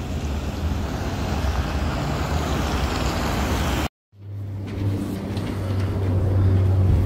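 Wind rushing over a phone microphone with road traffic passing; after a short silent break about four seconds in, a steady low engine hum on a city street.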